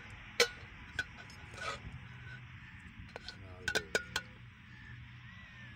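A metal serving spoon clinking against a steel plate and the rim of a large pot as biryani is scooped and served: a few sharp ringing clinks, the loudest about half a second in and a quick cluster around three to four seconds in.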